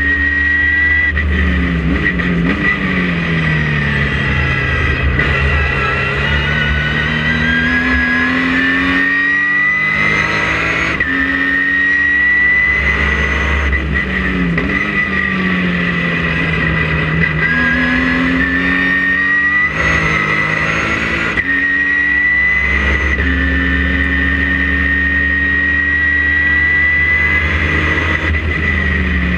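Ginetta G50 race car's V6 engine heard from inside the cabin, revving up through the gears with a short break at each shift, and dropping in pitch on the downshifts, over and over. A steady high whine runs under it.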